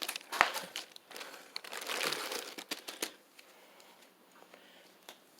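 Packaging being handled during an unboxing: crinkling and rustling with many small clicks for about three seconds, then it dies down to a few faint ticks.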